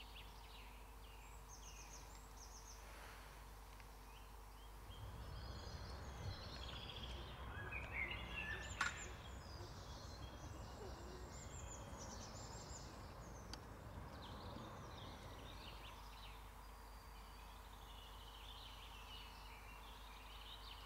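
Songbirds chirping and trilling in the woodland, faint, with a soft low rumble in the middle of the stretch.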